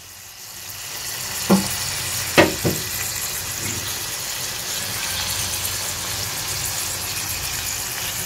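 Marinated chicken leg pieces sizzling in oil in a kadai over a very low flame: a steady frying hiss that builds over the first second or so and then holds. A few short knocks about two seconds in.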